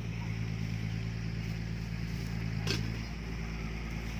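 Dump truck's diesel engine idling steadily, with a short hiss about two and a half seconds in.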